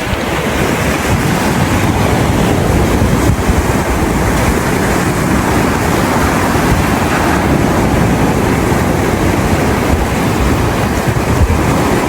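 Loud, steady wind buffeting the microphone, mixed with the rush of waves breaking on the shore.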